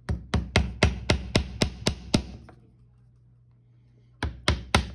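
Hammer driving a nail into a wooden board: a quick run of about nine light taps, about four a second, then a pause of about two seconds, and the tapping starts again near the end.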